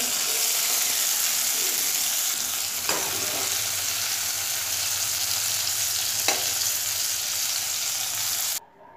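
Yard-long beans sizzling in hot mustard oil in a wok as a spatula stirs and scoops them out, with two short knocks of the spatula against the pan. The sizzling cuts off suddenly near the end.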